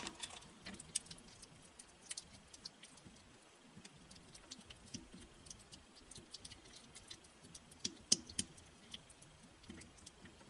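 A clear stirring rod clicking and scraping against a small glass bowl as a thick mask paste is stirred: faint, irregular taps, a few louder ones around eight seconds in.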